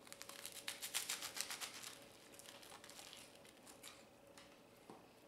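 Crisp friselle bread crunching as it is bitten into and chewed: a rapid run of crackling crunches for about two seconds, thinning to scattered crunches.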